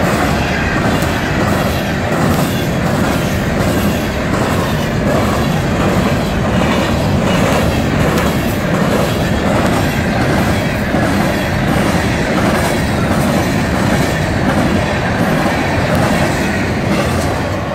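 Freight train's cars rolling past at steady speed, wheels clacking rhythmically over the rail joints beneath a continuous rumble.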